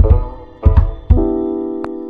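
Background music: sustained keyboard chords over a deep, regular beat.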